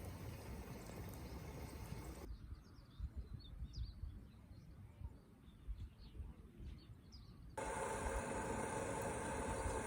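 Outdoor ambience in three abrupt sections. A steady hiss-like background gives way about two seconds in to a quiet stretch with a few scattered small bird chirps. Near the end it switches to a louder steady hum with several held tones.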